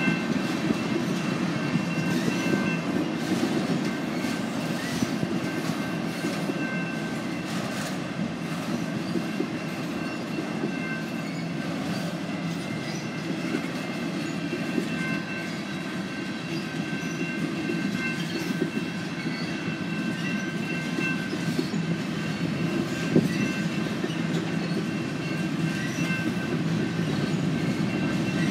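Freight train cars (tank cars, an autorack and covered hoppers) rolling past on the rails at a steady speed: a continuous rumble with light clicks over the rail joints. High steady ringing tones fade in and out over it.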